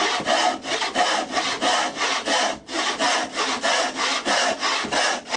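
Hand saw cutting wood in quick, even back-and-forth strokes, about four a second, with a brief pause about halfway through.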